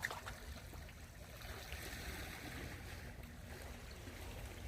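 Steady sea-side ambience of water and wind, with a low rumble throughout and a brief click right at the start.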